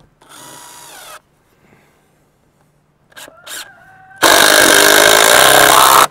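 Handheld electric power saw: a short run of the motor with its pitch sliding, then it spins up again and cuts through a wooden 2x4 for about two seconds, loud, stopping abruptly near the end.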